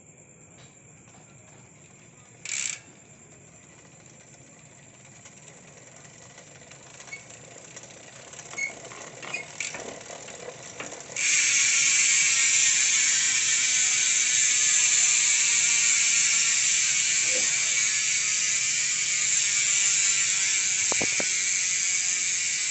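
Enlee bicycle hub's freehub ratchet buzzing as the wheel spins freely: scattered pawl clicks at first, then about halfway through a sudden loud, fast, high-pitched ratcheting buzz that holds steady and eases off slightly near the end.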